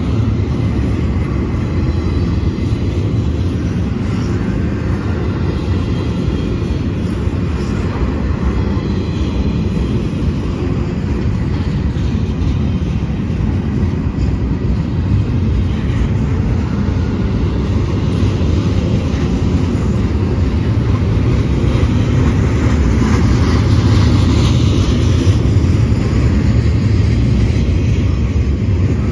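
A train rolling past: a steady rumble of wheels on rails, a little louder about three-quarters of the way through.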